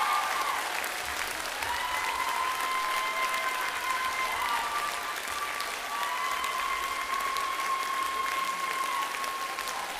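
Audience applauding steadily at the end of a stage dance performance, with a few long held tones sounding above the clapping.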